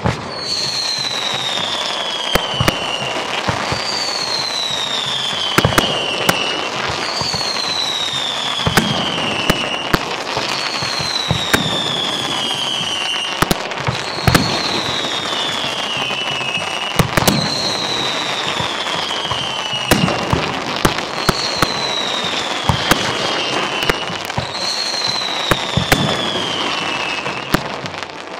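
Fireworks going off in a dense, steady crackle with sharp bangs. Over it, a whistle falls in pitch over about two and a half seconds and then starts again high, eight times about every three seconds.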